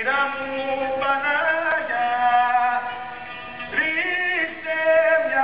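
Music: a man singing long, held notes that slide and waver in pitch, rising to a higher note about four seconds in.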